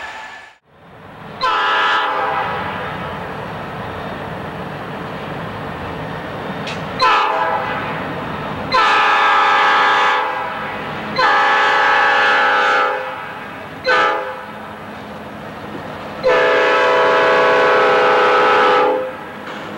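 Diesel freight locomotive's air horn, several notes sounding together, over the running of the engine: two short blasts, then the long, long, short, long pattern of a grade-crossing signal.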